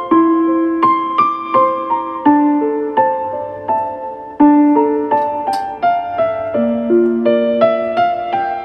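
Background piano music: a melody of single struck notes, each ringing on and fading as the next one comes in.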